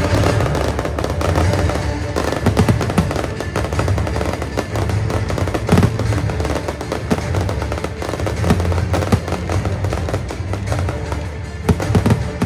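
Aerial fireworks bursting and crackling, many sharp pops in quick succession, over music with a pulsing bass; a few louder bangs stand out about halfway through and near the end.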